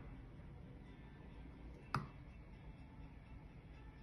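A single sharp click of a metal spoon knocking against a dish, about two seconds in, over a faint low hum.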